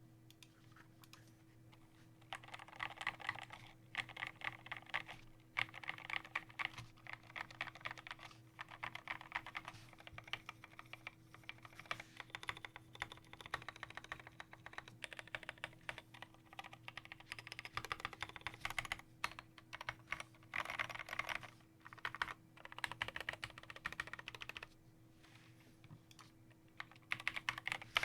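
Typing on a KBD75 V2 mechanical keyboard with lubed Novelkeys Cream linear switches, greased Durock stabilisers, an aluminium plate, no foam in the case, and SA-profile doubleshot keycaps: fast runs of keystrokes with short pauses between them. The typing starts about two seconds in, over a faint steady hum.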